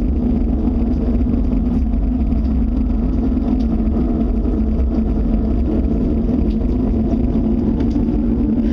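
Loud, steady low rumbling drone with a held hum running through it, unbroken and unchanging, from an unidentified source.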